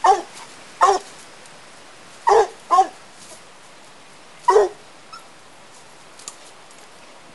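Black and Tan Coonhound pup barking at a raccoon: five short, sharp barks in loose groups, the last about halfway through.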